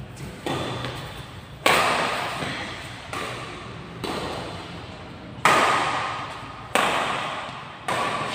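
Badminton rackets striking a shuttlecock in a doubles rally: about seven sharp hits, roughly a second apart, each ringing away in the echo of a large hall.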